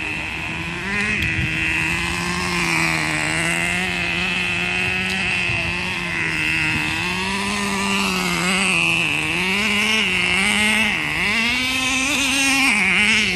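Radio-controlled car's motor running continuously, its pitch rising and falling as the throttle is worked, with more frequent swings in the second half.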